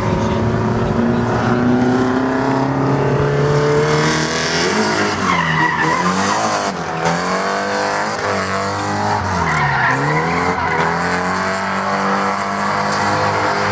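Drift car engine held high in the revs, climbing and dropping again and again, with the pitch briefly falling and recovering twice. Tyres squeal and skid throughout.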